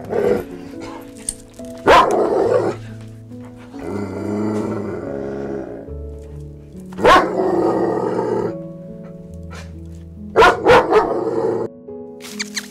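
Dog barking: short barks at the start, about two seconds in and about seven seconds in, then three quick barks near the end, over steady background music.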